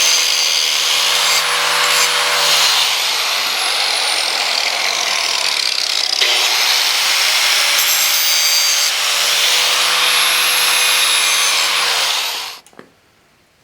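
Electric grinder running and grinding the steel of a rasp-forged tomahawk head, its motor pitch sagging under load for a few seconds and recovering. The grinder shuts off shortly before the end.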